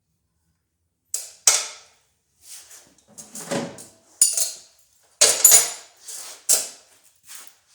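Metal tools and mower parts being handled: a run of separate sharp clanks and clinks, about eight knocks after a second of quiet.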